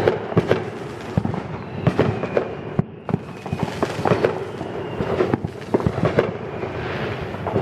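Consumer fireworks going off all around: many sharp bangs and pops at irregular intervals, some louder than others, overlapping with steady crackling between them.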